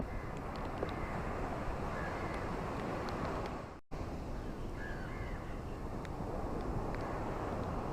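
Ocean waves washing on a shore: a steady rush of surf, with a few faint bird calls over it. About four seconds in the sound fades away and cuts straight back in.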